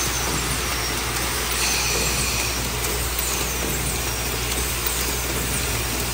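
Automated permanent-marker assembly machinery running: a steady low hum under a constant wash of mechanical noise, with faint light high-pitched ticks now and then.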